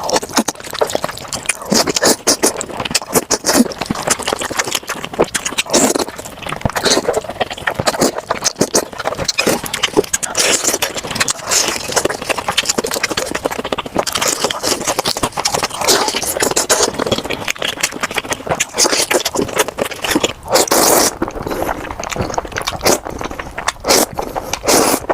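Close-miked eating sounds, chewing and slurping noodles: a dense, irregular run of short wet clicks, with several longer slurps.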